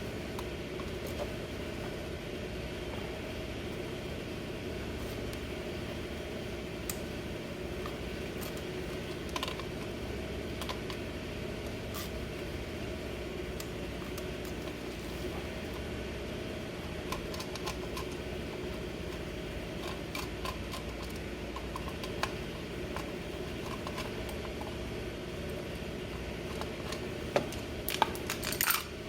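Scattered light clicks and taps of hand tools during scooter dismantling, over a steady mechanical hum, with a cluster of sharper knocks near the end.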